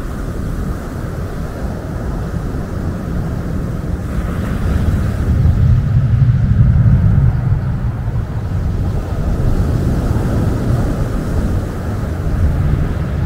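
A jet airliner passing overhead, its deep engine rumble swelling to a peak about six to seven seconds in and then fading. Under it, waves break and wash over a pebble beach.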